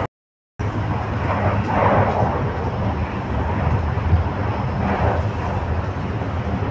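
Cabin noise inside a Bangkok Airport Rail Link electric train: a steady low rumble with a hiss that swells now and then. The sound cuts out completely for about half a second just after the start.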